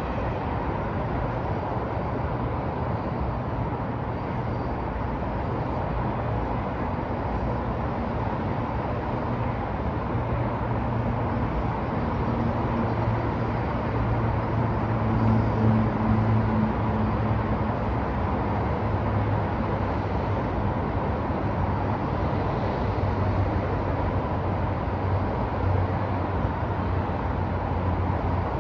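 Downtown street traffic: a steady wash of road noise with the low hum of vehicle engines, swelling a little around the middle.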